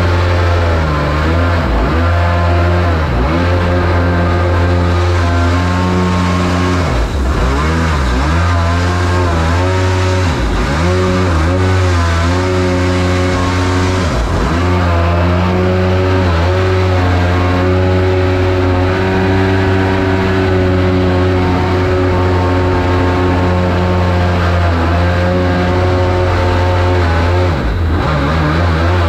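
Supercharged Rotax engine of a mini jet boat running hard at high revs. Its note dips briefly and climbs back about four times, as the throttle comes off and on.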